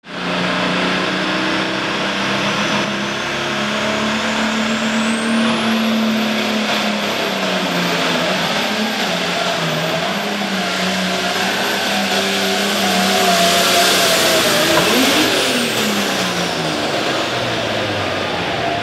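Turbocharged Farmall pulling tractor engine running hard under load, with a high turbo whistle that climbs about five seconds in and holds. About fifteen seconds in, the whistle and the engine note fall away sharply. The pull ends with a rear wheel torn off the tractor.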